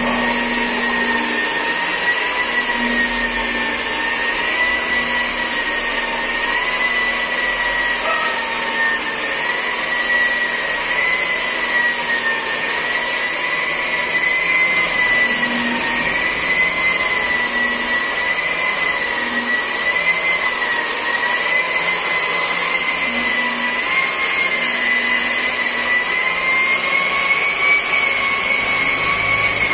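Electric rotary car polisher running steadily with its pad pressed on car paint, buffing polishing compound. It gives a continuous high motor whine that wavers slightly in pitch as the load on the pad changes.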